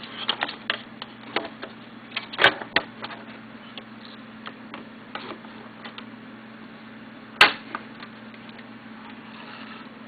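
Plastic housing of a vintage Honeywell ionization smoke detector being handled: a run of light clicks and knocks, with a sharp snap about two and a half seconds in and another, the loudest, about seven and a half seconds in, over a steady low hum.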